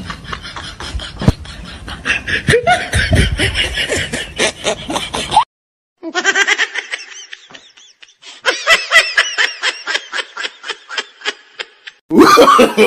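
People laughing in quick rhythmic bursts, broken by a brief cut to silence partway through; a louder voice cuts in near the end.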